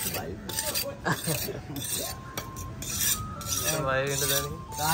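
Open-air fish market: metal clinking and scraping, with people's voices in the background and one voice rising louder about four seconds in.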